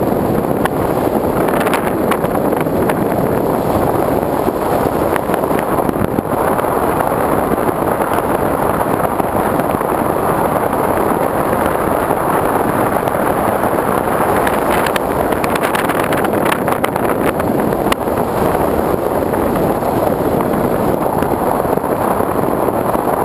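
Steady, loud in-flight noise of a Sky Surfer radio-controlled foam plane, heard from its onboard GoPro: mostly a rush of air over the airframe and camera, with a faint high whine throughout.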